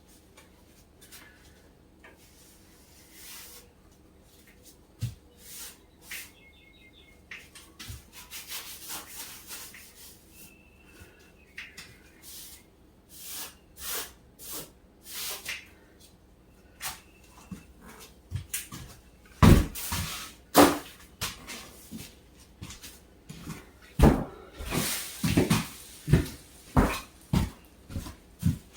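Irregular rubbing, rustling and knocking, sparse at first and coming thicker and louder in the second half, with a few faint short squeaks early on.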